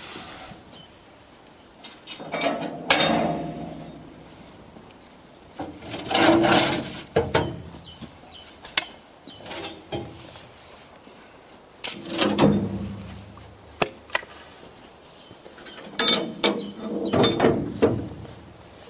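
Steel tipping skip wagons of a narrow-gauge field railway clanking and rattling as they are handled, in four bursts of metal-on-metal clatter with some ringing, a few seconds apart.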